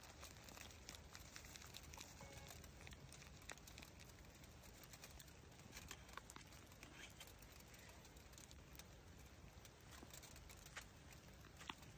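Faint, steady hiss with occasional light crackles and ticks from a big pot of rice steaming over a wood fire.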